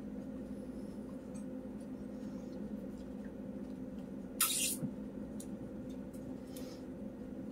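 A single short slurp through a wide boba straw, sipping milk tea, about halfway through. Under it is a faint steady hum.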